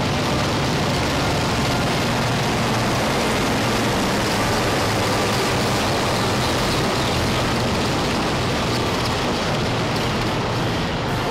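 Formation of helicopters with a Fairey Swordfish biplane flying overhead: a loud, steady mix of rotor and engine noise.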